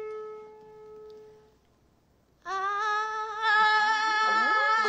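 A single piano note rings and fades away, then about two and a half seconds in a woman's voice starts singing one long held note on the same pitch, an A, growing louder about a second later.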